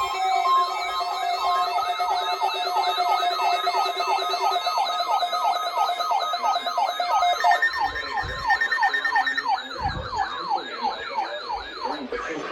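Several weather radios sounding their alert alarms together, set off by the NOAA Weather Radio required weekly test: a warbling siren tone repeating about four times a second, layered with other steady and stepped beeping alert tones. One tone shifts about halfway through, and the alarms stop shortly before the end.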